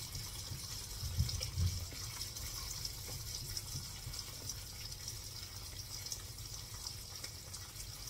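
An egg frying in butter in a non-stick pan, a faint steady sizzle with fine crackles. Two soft low thumps come between one and two seconds in.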